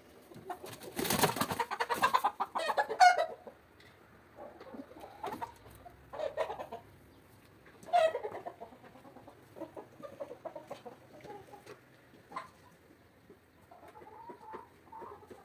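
A hen squawking loudly with a scuffle for the first few seconds, then clucking now and then, with a louder call about eight seconds in.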